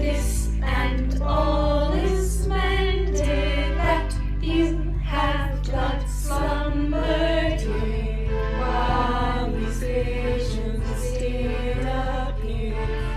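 Music: a song with several voices singing together over held low bass notes, the bass changing about every four to five seconds.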